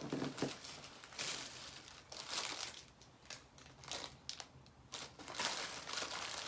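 Snack packaging crinkling and rustling as it is handled, in irregular bursts.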